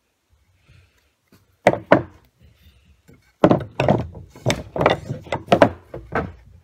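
Knocking on wooden boards: two sharp knocks, then a run of about nine quick knocks, roughly three a second, as a glued piece of wood is tapped back into place.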